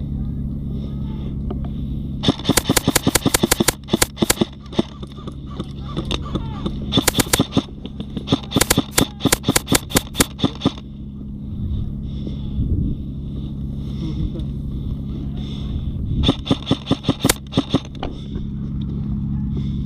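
Airsoft guns firing in rapid strings of shots, about six or seven a second, in four volleys with pauses between them.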